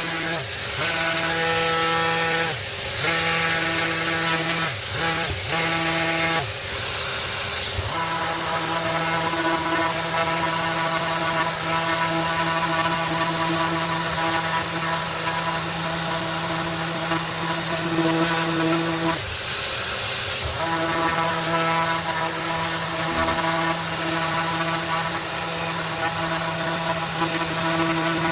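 A 5 mm orbital sander running steadily against a hardwood board while sanding it smooth, a constant whine. The tone breaks off twice for a second or so, about a third of the way in and again past the middle.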